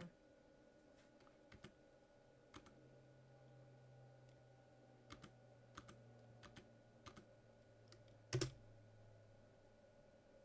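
Faint, scattered keystrokes on a computer keyboard, a handful of separate key presses with one louder press near the end, over a faint low hum.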